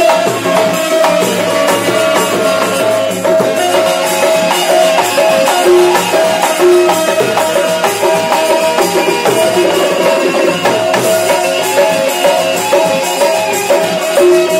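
Live qawwali instrumental (nagma): tabla and a hand drum play a fast, dense rhythm under a repeating melody line of short held notes.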